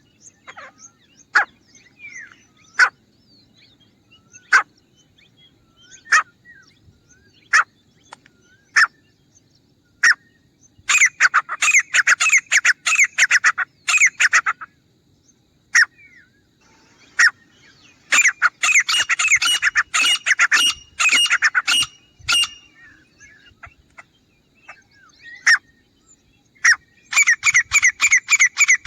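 Grey francolin calling: single sharp notes about every second and a half, then rapid runs of ringing, repeated notes, starting about a third of the way in, about two-thirds of the way in, and again near the end.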